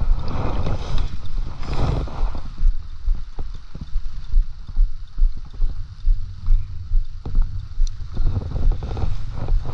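Spinning reel being wound in on a salmon rod, heard as a regular low knocking about twice a second. Wind gusts on the microphone come in twice near the start.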